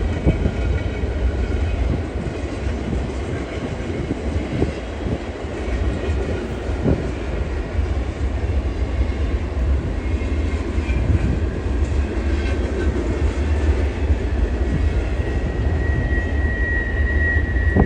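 Freight train rolling past: the steady rumble and rattle of the cars going by, with a high, steady whine joining near the end.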